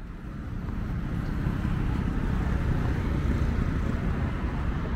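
Steady outdoor city street noise: a heavy low rumble of traffic and general urban din, fading in over the first second.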